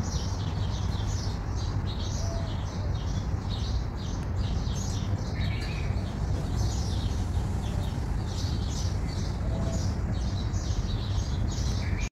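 Small birds chirping in quick, repeated short calls, over a steady low rumble.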